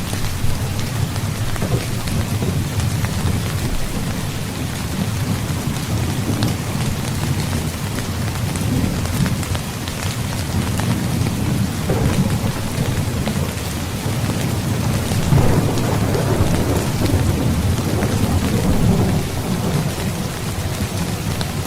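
Heavy rain falling steadily, with rolling thunder rumbling low underneath and swelling twice, in the middle and again near the end.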